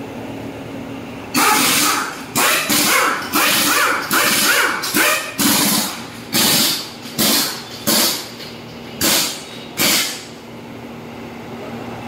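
Compressed-air tyre-shop equipment going off in about a dozen short, loud bursts over several seconds, at irregular gaps, with a steady low hum between them.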